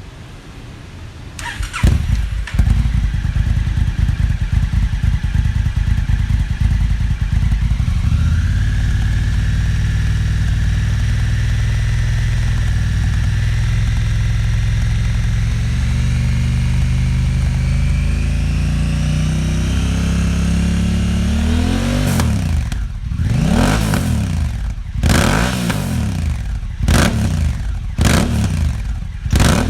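Honda Africa Twin 1100 parallel-twin engine with a REMUS Black Hexacone exhaust starting up about two seconds in and idling, its pitch slowly creeping up. Near the end it is revved in a string of short throttle blips.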